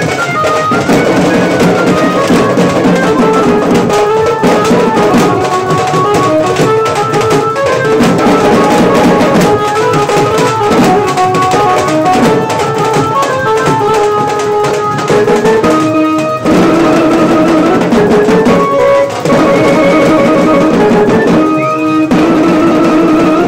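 A dhol tasha band playing: dhols and tashas beating a fast, dense rhythm under a melody of held, stepping notes from a wind or keyboard instrument. The drumming breaks off briefly twice near the end.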